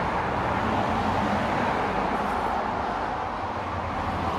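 Steady road-traffic noise, an even rush of tyres and engines.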